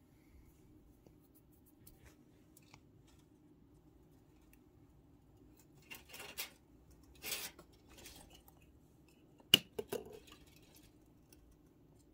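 Hand handling right at the phone's microphone: a few brief rustles and scrapes, then a sharp click about three-quarters of the way through, followed by a couple of smaller clicks.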